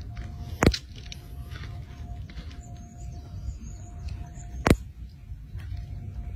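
Faint high-pitched squeaky calls from a young eagle standing over its kill, with two sharp clicks about four seconds apart, over a low steady rumble and a faint steady hum.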